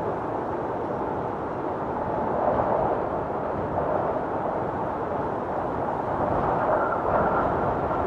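Howling blizzard wind: a steady rush of gusting wind that swells about two and a half seconds in and again near the end, with a faint high whistle over it near the end.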